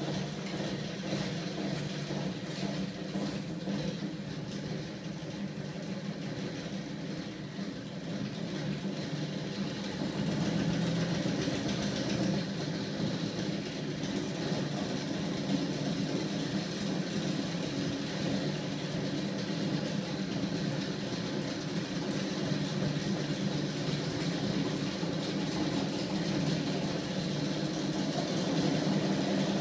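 Homemade magnet-driven flywheel machine running steadily, its small electric motor turning the crankshaft and heavy flywheel discs with a steady mechanical hum. It gets a little louder about ten seconds in.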